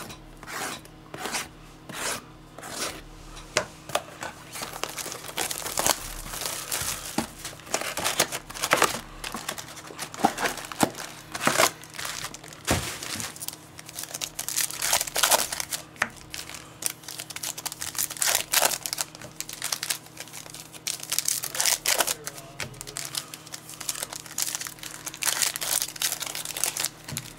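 Plastic wrapping crinkling and tearing by hand, as sealed trading-card boxes and packs are opened, in a long run of quick rustles and crackles.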